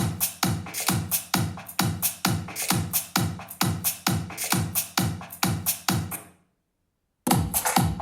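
Electronic dance music with a steady kick-drum beat of about two beats a second, played through a JBL portable Bluetooth speaker. The music cuts off about six seconds in and starts again about a second later.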